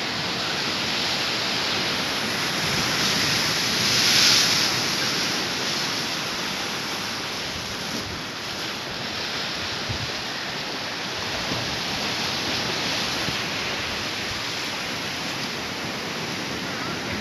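Ocean surf: a steady rush of waves breaking, with one swelling louder about four seconds in.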